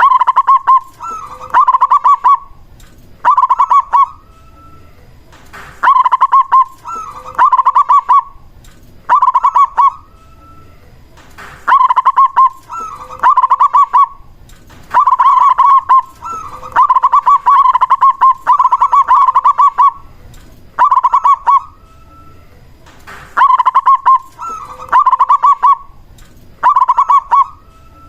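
A male zebra dove (perkutut) cooing loudly and repeatedly. Each song phrase is a quick stuttering run of short coo notes, often ending in a brief rising note, and the phrases come every two seconds or so.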